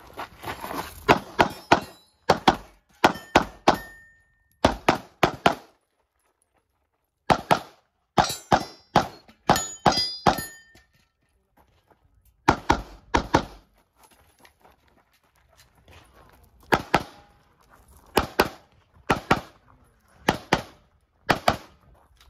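Glock 17 Gen 5 MOS 9mm pistol firing rapid pairs and short strings of shots, with pauses of a few seconds between strings.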